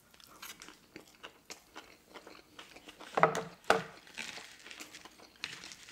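Close-up chewing of a sushi roll topped with crispy tempura flakes and spicy mayo: irregular small crunches and wet mouth clicks, with two louder mouth sounds a little past three seconds in.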